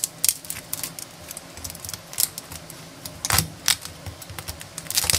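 A knife blade crunching through the crispy, crackling skin of an air-fried German pork knuckle on a wooden cutting board. It makes a run of irregular sharp crackles, with the loudest crunches just past the middle and near the end.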